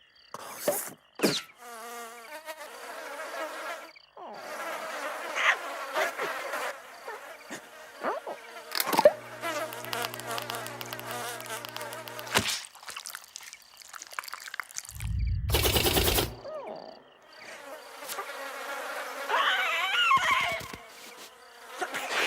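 Cartoon sound effects of a buzzing insect, mixed with other short effects, including a steady low hum partway through and a loud rushing burst about fifteen seconds in.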